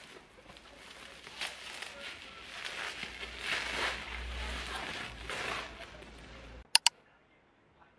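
Bubble wrap and plastic packaging rustling and crinkling in waves as a parcel is unwrapped by hand. Two sharp clicks near the end, then the sound stops suddenly.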